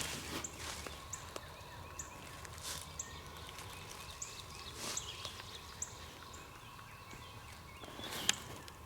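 A wild turkey gobbling faintly far off, under songbird chirps repeating about once a second, with a few footsteps in leaf litter.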